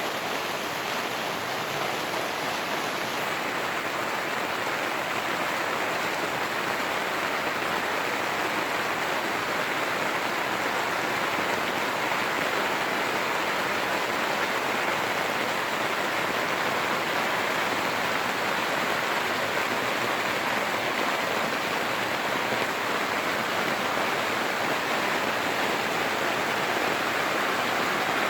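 Heavy rain falling steadily on the fabric of a Cabela's Big Horn 3 tent, a continuous hiss of drops.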